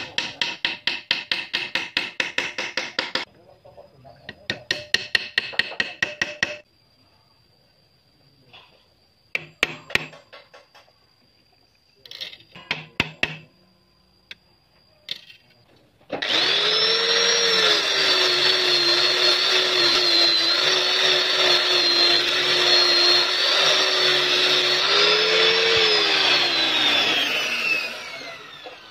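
Rapid even taps, about seven a second, in two runs as a bamboo peg is worked into a drilled hole in a wooden joint, then a few separate knocks. After that an electric power tool's motor runs steadily for about twelve seconds and winds down near the end.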